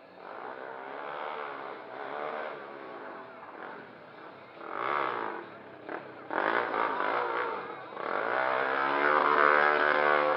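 Sport quad's engine revving up and down in short pulls, then held at high revs for the last couple of seconds while the quad is stood up in a stunt wheelie.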